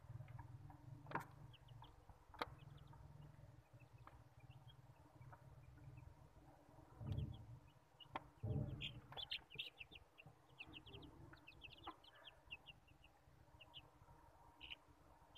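Young Australorp chicks peeping faintly, short high calls in quick runs that grow thickest in the middle. A couple of sharp clicks come early, and two low thumps about seven and eight and a half seconds in.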